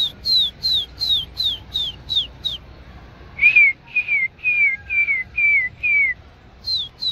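Runs of short, loud whistled notes, each sliding down in pitch, about three a second. After a brief pause a second run comes at a clearly lower pitch, and a higher run starts again near the end.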